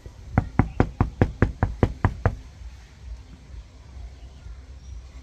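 Knocking: about ten quick, evenly spaced raps, roughly five a second, lasting about two seconds.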